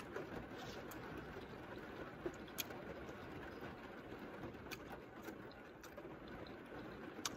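Quiet eating: soft chewing and a few sharp little mouth and fork clicks over a faint steady hiss, with the clicks coming about two seconds in, once more a little later, and near the end.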